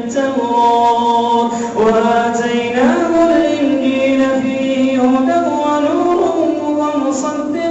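A man reciting the Quran in a melodic chant, one unaccompanied voice holding long notes that slide up and down in pitch.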